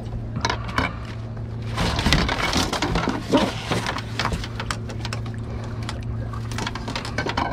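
Knocks, clicks and rustling as a small sharpnose shark is held and unhooked in a landing net on a fibreglass boat deck. The busiest and loudest stretch comes about two to three and a half seconds in. A steady low hum runs underneath.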